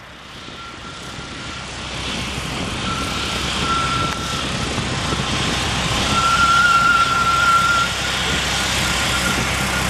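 Embraer regional jet's twin turbofan engines running as it rolls along the runway: a broad roar with a low rumble and a high whine, growing louder as it approaches and strongest about six to eight seconds in.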